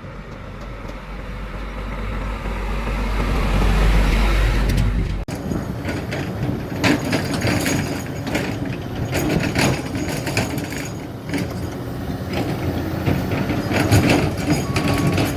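Heavy diesel machinery running at a quarry: a low rumble swells over the first five seconds and then cuts off suddenly. After the cut comes a steady run of clanks and rattles, typical of an excavator dropping rock and sand into a dump truck bed. Near the end a beeping alarm starts, on and off.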